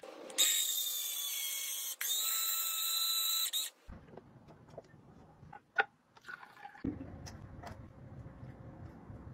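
Electric citrus juicer's motor whining high as the reamer spins under the pressed-down lid. It stops briefly about two seconds in, starts again, and cuts off just before four seconds, leaving faint clicks.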